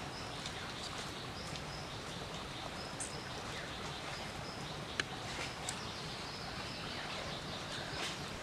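Several sharp clicks of a machete blade cutting through a raw chicken, the loudest about halfway, over a steady forest background hiss with short high chirps repeating.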